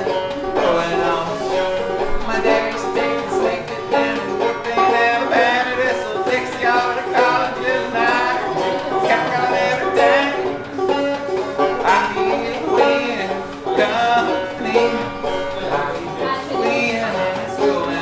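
A man singing while playing the banjo, plucked notes going continuously under his voice.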